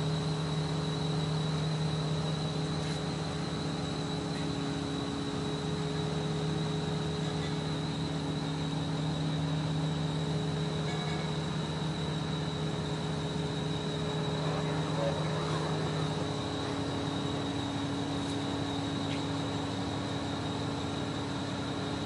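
Liebherr mobile crane's engine and hydraulics running steadily while the telescopic boom is raised, a continuous mechanical hum with a few held tones; the lowest tone drops away about three-quarters of the way through.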